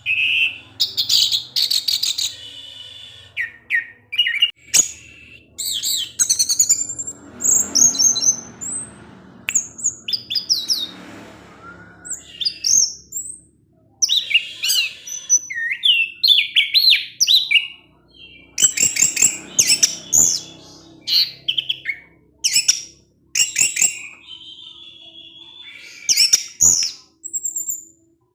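Orange-headed thrush (anis merah) singing a long, varied song of rapid chirps, sharp 'cip' and 'cis' notes and whistled phrases, broken by short pauses.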